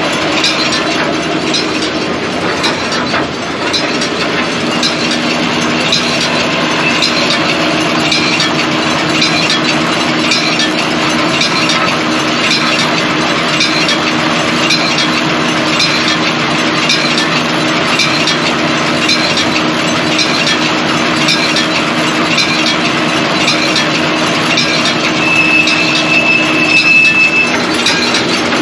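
John Deere 459 round baler running behind its tractor, a steady mechanical running sound with a regular clicking. Near the end a high squeal sounds for about two seconds: the abnormal baler noise whose source has not yet been found.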